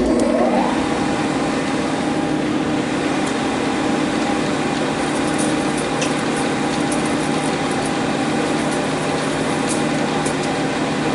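Monarch 612 engine lathe's headstock starting up as the spindle clutch engages: a gear whine that rises in pitch over the first second, then runs steadily.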